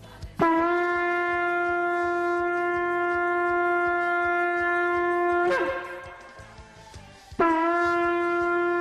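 Shofar blown in two long, steady blasts on one note: the first held about five seconds and breaking downward in pitch as it ends, the second starting about two seconds later. Each blast opens with a quick upward slide into the note.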